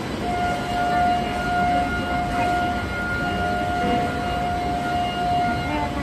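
A steady high tone sounds for about five seconds over the general noise of a busy train station.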